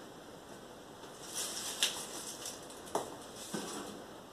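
Chopped cabbage pieces being put into a Thermomix's steel mixing bowl: a few light knocks and rustles, the sharpest about two seconds in.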